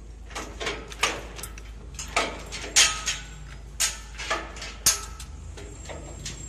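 Steel chain clanking and rattling against a steel frame as it is handled, in about eight sharp, irregular clanks.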